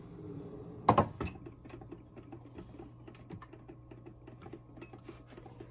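Tool chest drawer and chrome sockets being handled: a sharp double clack about a second in, then a run of light clicks and ticks.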